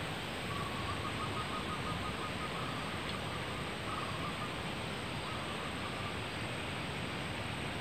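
Steady forest hiss, with a faint, rapid trilling animal call repeated in several short runs over the first six seconds or so.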